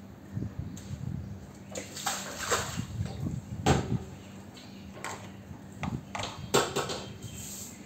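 Soapy water sloshing and splashing on a tiled floor, with a stiff push broom scrubbing the wet tiles in irregular strokes.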